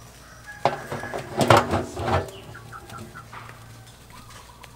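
Large aluminium pot lid clattering onto a wok steamer, a few metal knocks with a short ringing over about a second and a half.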